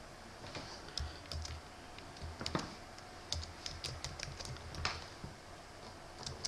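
Computer keyboard being typed on: irregular keystroke clicks in short runs with brief pauses between them.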